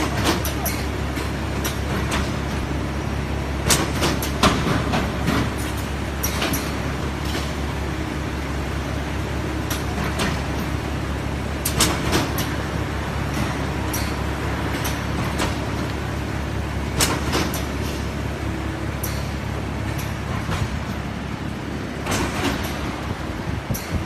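Industrial veneer splicer machine running with a steady low hum, with sharp clicks and knocks every few seconds as veneer strips are worked through it.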